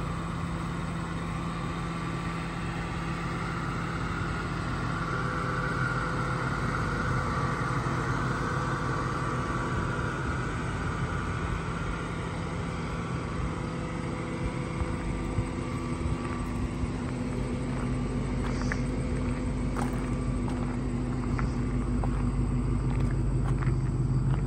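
Ford Mustang GT's 4.6-litre V8 idling steadily with a low rumble, growing louder near the end, with a few light ticks over it.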